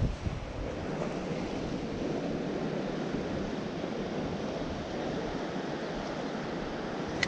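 Steady wash of the sea against the pier, mixed with wind buffeting the microphone. A brief low thump at the very start and a short sharp click near the end.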